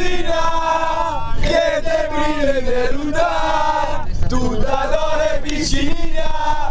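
A group of football supporters chanting a terrace song together in unison, loud and continuous, inside a coach.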